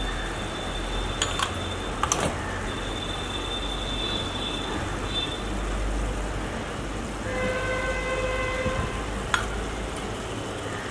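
A few sharp clinks of a steel cup and slotted spoon against the cast-iron pan over a steady background noise. A vehicle horn sounds once for about a second and a half near the end.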